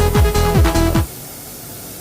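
Electronic dance music with a steady kick-drum beat, about three beats a second, that cuts off abruptly about a second in, leaving a steady, much quieter background noise.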